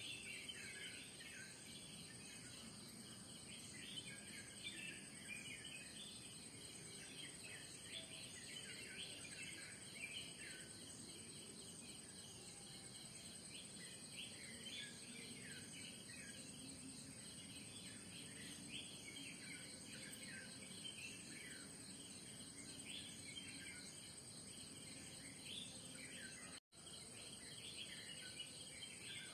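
Morning chorus of many small birds chirping and calling over a steady high-pitched insect drone. The sound cuts out for an instant near the end.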